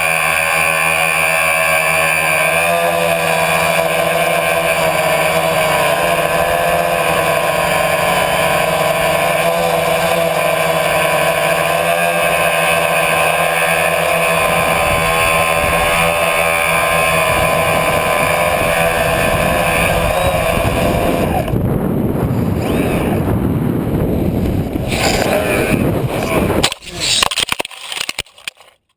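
Tricopter's three electric motors and propellers whining steadily, heard from the onboard GoPro. About three quarters of the way through, the motor tone stops and gives way to a rush of wind as the tricopter falls. It then hits the ground with a few knocks and crackles, landing upside down in dry weeds.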